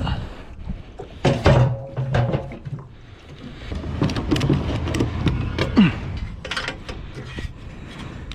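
A run of irregular knocks and clunks.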